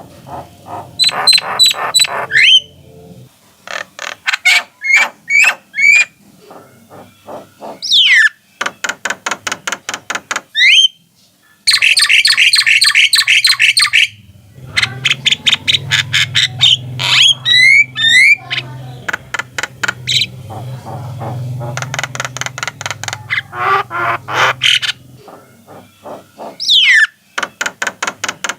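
Javan mynas calling and chattering: quick runs of sharp repeated notes and clicks, broken by short whistles that swoop up or down. A low hum lies underneath through the middle of the stretch.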